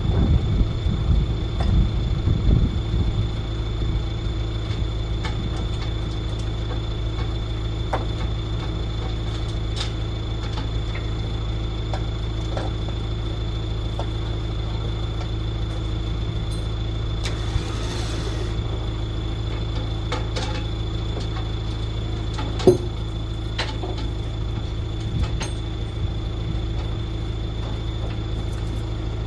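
Vehicle engine running steadily with a low drone. There are scattered light clicks and one sharp knock about 23 seconds in.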